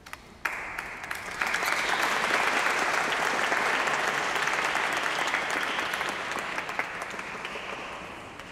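Audience applauding: a few scattered claps, then full applause that builds over the first second and a half, holds, and fades out gradually near the end.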